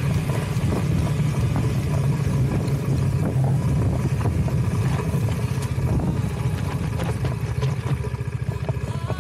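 Husqvarna Svartpilen 250's single-cylinder engine running steadily under way, heard from on board the motorcycle, easing off slightly near the end.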